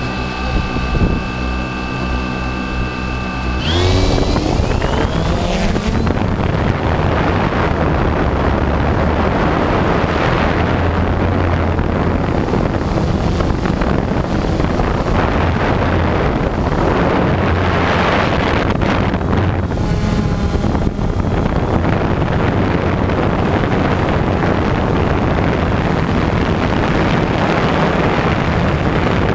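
Multirotor drone's motors whining at a steady pitch, rising about four seconds in as it lifts off. After that, propeller wash and wind on its onboard microphone make a loud, steady rushing.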